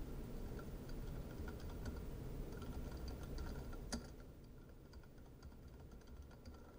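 Faint clicking of computer keyboard keys being typed at an irregular pace, with one sharper click about four seconds in.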